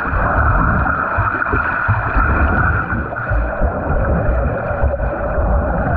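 Water churning and splashing from freestyle swimming at sprint pace, a continuous rush with uneven low thumps.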